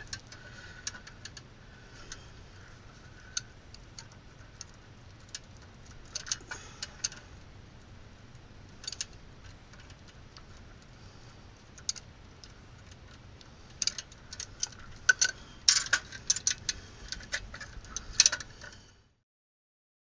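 Hand tools clicking and clinking against the metal of an electrical disconnect box as its wiring is worked with pliers: scattered sharp clicks, thickening into a rapid cluster near the end. The sound then stops abruptly.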